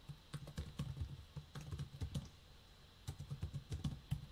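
Computer keyboard typing: a run of keystrokes, a short pause about halfway through, then more keystrokes.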